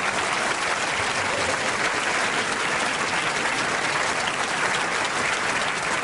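Audience applauding: dense, steady clapping that holds at one level throughout.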